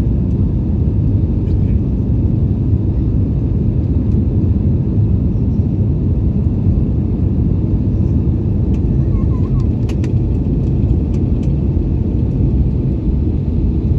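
Steady low rumble of an airliner's jet engines and airflow heard from inside the passenger cabin, with a few light clicks about ten seconds in.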